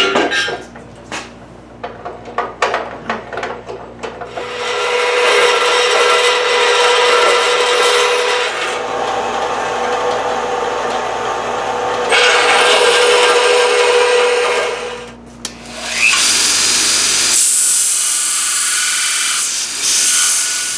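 A few knocks as a small metal piece is set on a metal-cutting bandsaw, then the bandsaw cutting through the metal with a steady tone for about ten seconds. After a short break, a belt grinder runs with the piece pressed against the belt, a brighter, hissier sound, until near the end.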